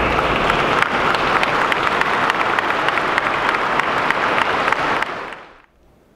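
Crowd applauding, a dense patter of many hands clapping that dies away about five and a half seconds in.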